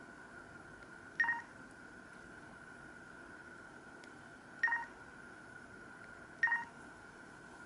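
Short electronic beeps from an LG KP500 mobile phone's speaker: three brief two-note blips at uneven intervals, over a faint steady high whine.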